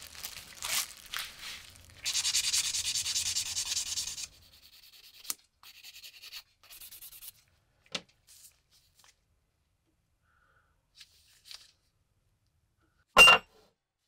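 Plastic bag crinkling as it is unwrapped, then about two seconds of steady scratchy rubbing, a few faint ticks, and a single sharp, ringing metal clank about a second before the end as a steel plate is set down on the wooden workbench.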